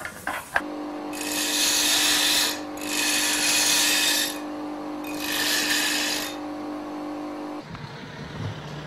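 Electric grinder running with a steady motor hum, grinding metal in three hissing passes of a second or so each, sparks flying. The motor sound cuts off near the end.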